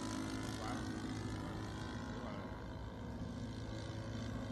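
NGH GF38 single-cylinder four-stroke gasoline engine of a radio-controlled model airplane in flight, giving a steady drone.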